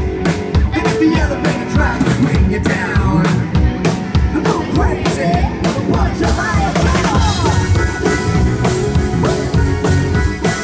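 Live rock band playing, with a drum kit beat to the fore under electric guitars; the sound grows brighter and fuller about six seconds in.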